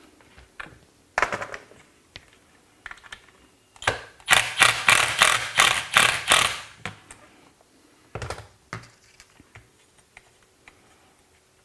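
Clicks and rattles of small tools and hardware being handled while fitting a pedal mount, with a run of rapid sharp clicking from about four seconds in that lasts nearly three seconds.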